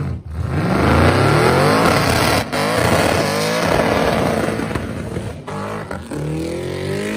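Supercharged Holden Commodore ute engine revving hard during a burnout, with the tyres spinning. The revs climb and are held high, cut out sharply for an instant a few times, and climb again near the end.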